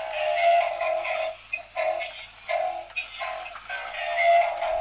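Battery-powered Bumblebee dancing robot toy playing its built-in electronic dance tune with a synthetic singing voice and a steady beat. The sound is thin and has no bass, as from a small toy speaker.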